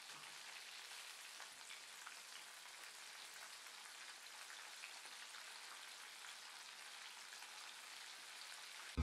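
Faint crackle of oil deep-frying: a steady, quiet hiss sprinkled with tiny pops.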